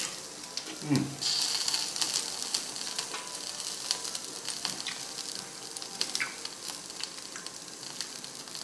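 Meat sizzling on an electric tabletop grill: a steady hiss full of small crackles and pops. A short sound falling in pitch comes about a second in, and the sizzle turns louder for a moment just after it.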